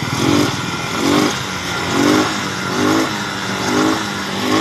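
Motorcycle engine running on a newly replaced CDI, its throttle blipped about once a second so the revs rise briefly and drop back each time.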